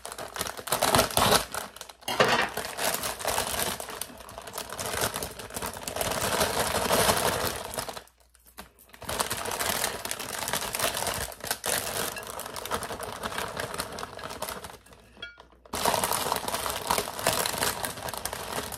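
Plastic bag of baby spinach crinkling and rustling as it is handled, shaken and the leaves pulled out of it, with a short pause about eight seconds in.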